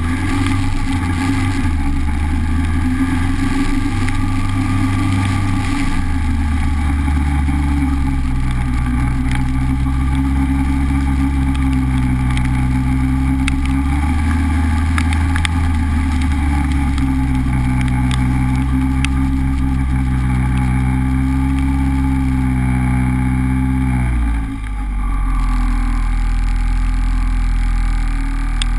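Honda Civic driving on a wet road: engine running with its note changing pitch several times under a strong low rumble of road and rain noise. About 24 seconds in the engine note drops away briefly, then carries on lower.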